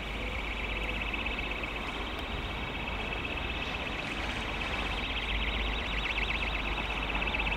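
Wheel flange squeal from a Class 172 diesel multiple unit rounding a tight curve: a steady high-pitched squeal that wavers and grows louder about two thirds of the way through, over a low rumble.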